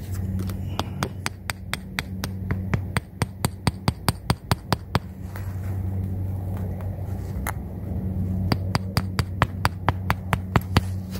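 Claw hammer driving nails through artificial turf: two runs of quick, even taps, about four or five a second, with a pause of about two seconds between them. A steady low hum runs underneath.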